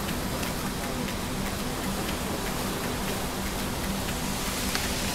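Steady rushing hiss, even in level throughout, with a faint low steady hum beneath it.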